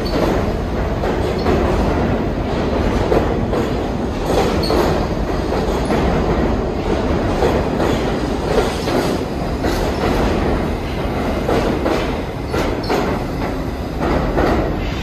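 New York City subway train running on the BMT Fourth Avenue Line, its wheels clattering steadily over rail joints with a few short wheel squeals.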